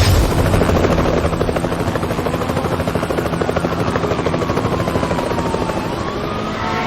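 Helicopter sound: rapid, even rotor chopping that swells in, with a whining tone that falls slowly in pitch and turns up again near the end.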